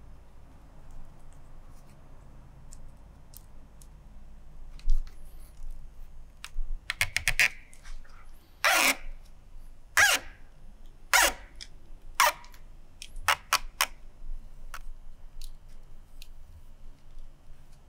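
Rattan cane strands scraping and clicking against a woven cane chair seat as they are threaded through the lattice. Scattered light ticks, then a quick run of clicks, four scratchy swishes about a second apart, and a few sharp clicks near the end.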